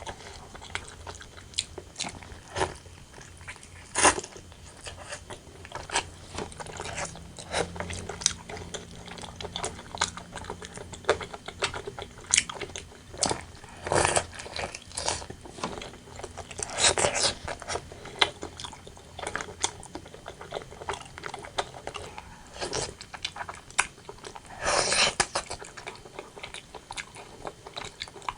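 Close-miked eating of braised pork and white rice: irregular chewing with wet mouth clicks and short bites.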